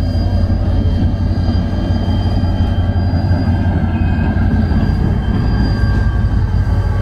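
Diesel-electric freight locomotive running past close by while shunting to couple onto the other end of the train. Its engine gives a steady low rumble with a few steady higher tones over it.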